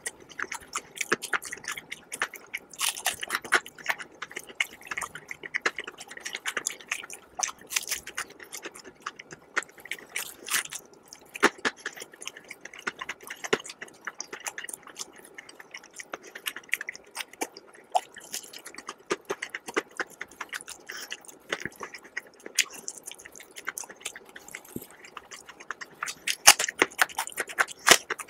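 Close-miked chewing of crispy fried chicken: irregular crackling crunches of the breaded crust, with a louder crunch near the end.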